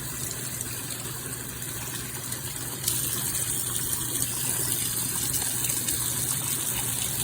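Water spraying from a filtered shower head in a steady hiss, turning suddenly louder and brighter about three seconds in.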